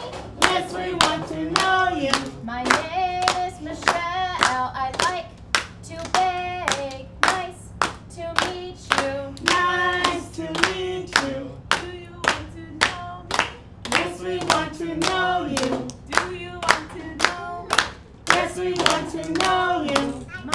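Voices singing a children's circle-time song, with hands clapping along at a steady beat of about two claps a second.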